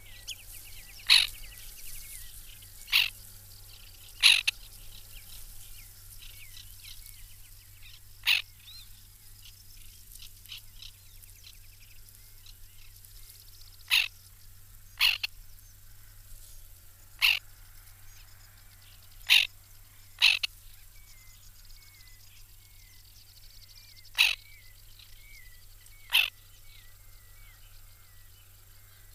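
White-winged terns giving short, sharp calls, about eleven of them at uneven gaps of one to four seconds, over faint chirping of other birds.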